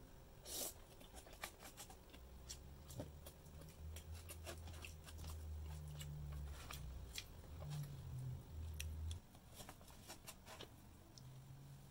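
Plastic spoon scraping and tapping on a paper food wrapper as rice is scooped up, the paper crinkling: a run of faint, sharp clicks and scrapes over a low rumble through the middle.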